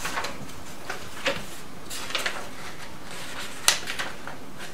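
A sheet of coloured paper rustling as it is handled and cut, with a few scattered scissor snips. The sharpest snip comes about three and a half seconds in.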